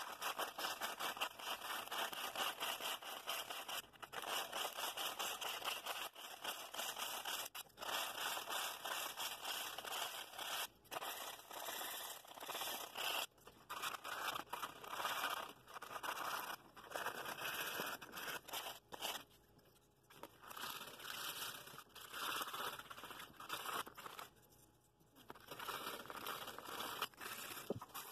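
Coarse 60-grit sandpaper rubbed by hand along the edges of a small walnut piece, rounding over the sharp corners: quick rasping back-and-forth strokes in runs, with a couple of brief pauses in the second half.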